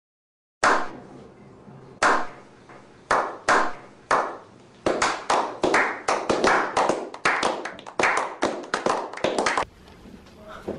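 A small group of people clapping in a slow clap: single claps more than a second apart at first, quickening into faster, overlapping applause, then stopping about a second before the end.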